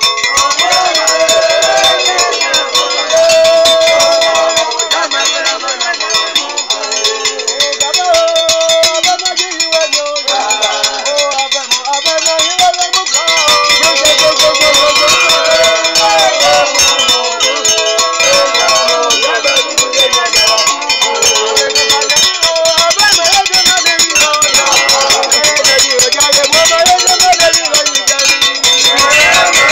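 Street masquerade music: several voices singing a repeated chant over a fast, steady clatter of metal bells and shaker rattles.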